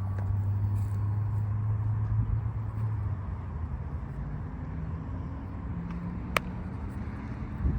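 Low steady hum of a vehicle engine running nearby, easing off about three seconds in, with a single sharp click about six seconds in.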